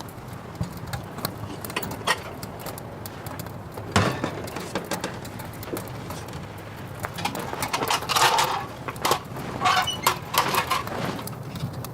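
Irregular knocks and clatter of objects being handled, with one sharp knock about four seconds in and a busier run of clattering near the end.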